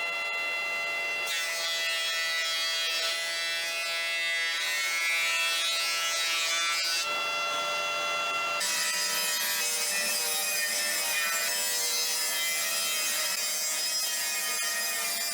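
A woodworking machine running with a steady whine while timber is fed through it and cut. There are two cutting passes: the first starts about a second in and stops around seven seconds, with the machine running on unloaded for a moment before the second pass begins.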